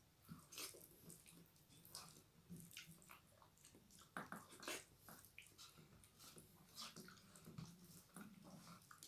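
Faint, irregular wet squelches and light clicks as fingers mix soft fanabhat (rice in its starchy water) on steel plates, with some chewing.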